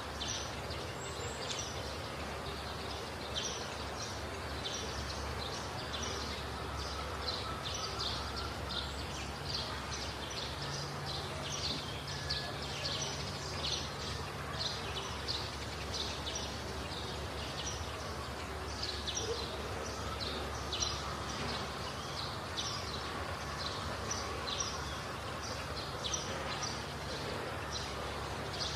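Many short, high chirps, two or three a second, go on throughout over steady background noise and a low hum.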